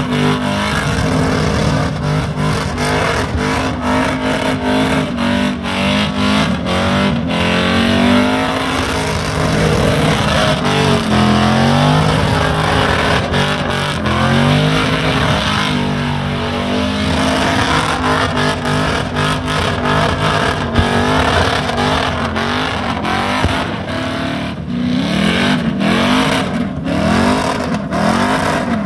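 Holden Commodore V8 held at high revs during a burnout, its engine pitch rising and falling as the throttle is worked, over the hiss of the spinning rear tyres. Near the end the revs swing up and down in quick repeated sweeps.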